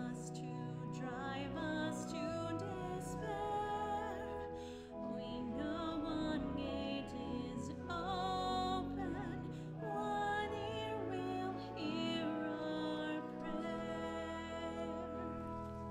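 Church hymn music: voices singing over sustained instrumental chords, thinning out near the end.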